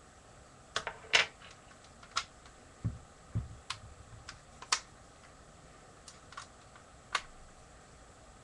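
Lego brick gun being handled: about nine sharp, irregular plastic clicks and snaps, the loudest about a second in, with two soft thumps around three seconds in.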